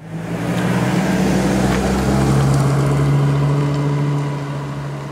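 Pickup truck engine running as the truck drives along a road and away, a steady low hum that fades near the end.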